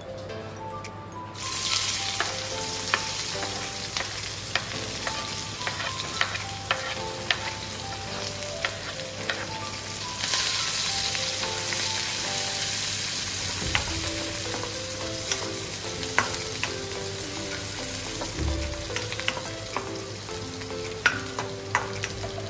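Sliced onions sizzling in hot oil in a wok, the sizzle starting about a second and a half in and swelling again about ten seconds in. A spoon stirs them, with scattered clicks and scrapes against the pan.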